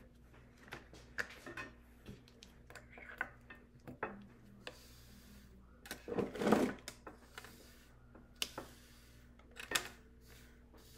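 Loose rhinestones being swept off a rhinestone template with a small brush: irregular light scratching and clicking of stones, with a louder sweep a little after six seconds in and another near the end.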